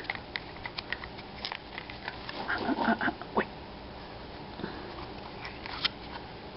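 Hard plastic surprise egg and its clear squinkie capsule handled and pried apart: scattered light plastic clicks and taps, the sharpest about halfway through.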